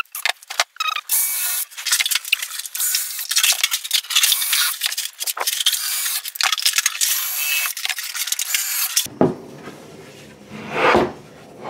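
Cordless drill boring pilot holes and driving screws into MDF cabinet panels, heard as a thin, high-pitched, choppy whirring and scraping. About nine seconds in the sound changes to the MDF box being handled on the bench, with one louder scrape near the end.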